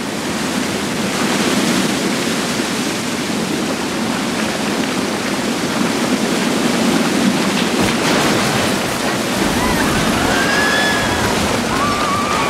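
Steady rushing roar of a lahar, a volcanic mudflow of rain-soaked ash and debris, pouring through a channel. Faint wavering high-pitched sounds come in near the end.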